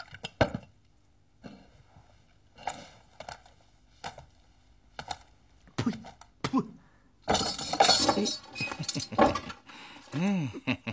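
Scattered light clinks and knocks, then about seven seconds in a couple of seconds of rattling metallic clatter, like studded armour and tableware moving. A short hummed voice sound, rising then falling, comes near the end.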